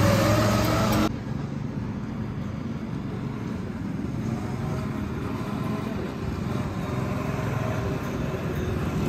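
Go-kart engines running, with rising revs early on. About a second in the sound drops abruptly to a steadier, quieter engine and track noise.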